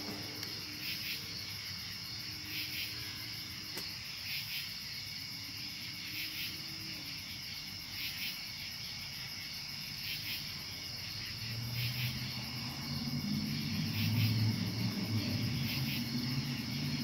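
Night insects, crickets and the like, chirping: a steady high trill with a louder pulse about once a second. A low rumble builds in over the last few seconds.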